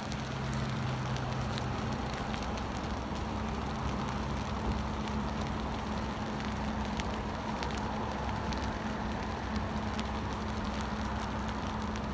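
Grass fire burning with scattered faint crackles while a fire hose sprays it, heard as a steady rushing hiss over a low steady engine hum.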